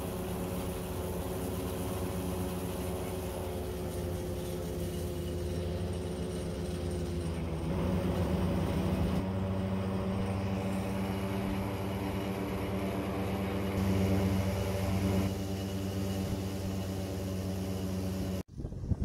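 Airboat engine and propeller running steadily at cruising speed, with a hiss over the engine note, which shifts slightly a few times. The sound cuts off abruptly near the end.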